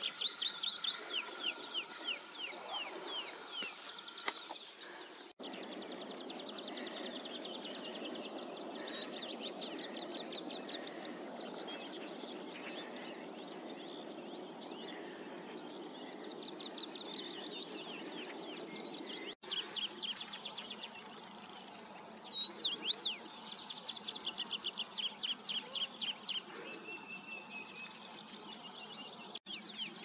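Tree pipit singing: fast series of repeated high trilled notes, running into rows of slurred, down-sweeping notes near the end. A steady low background rush lies under the song in the middle stretch.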